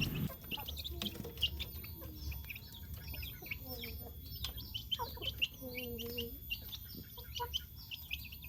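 Young chicks peeping in short, high chirps, faint and scattered throughout, with a few lower, longer clucking calls in between.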